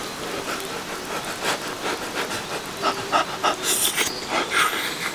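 A person slurping hot spaghetti: a run of short, noisy sucks, loudest about three and a half to four and a half seconds in.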